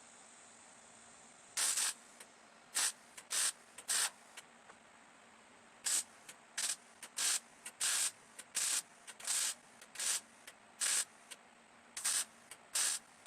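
Welder laying a series of short tack welds on a sheet-metal fender patch: about fifteen brief crackling hisses, each about a third of a second, at uneven intervals, starting about two seconds in.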